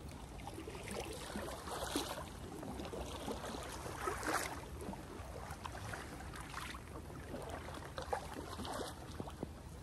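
Packraft paddle strokes: a double-bladed paddle dipping and pulling through shallow floodwater, soft splashes every second or so, the clearest about four seconds in.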